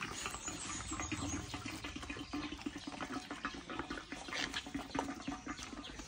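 Petrol being poured from a bottle into a Royal Enfield Hunter 350's fuel tank, a steady liquid trickle and splash.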